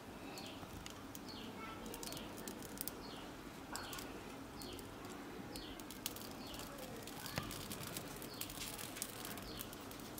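A bird calling in the background: short, high, falling chirps repeated about every half second, over faint scattered clicks.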